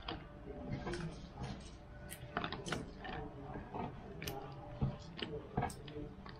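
Thick dried-chili sauce simmering in a wok, with bubbles popping in irregular sharp ticks a few times a second, as cut spring onion is dropped in. A faint steady hum sits underneath.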